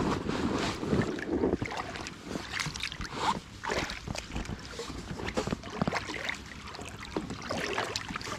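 Kayak paddle dipping and pulling through lake water, with irregular splashing and dripping, and some wind on the microphone.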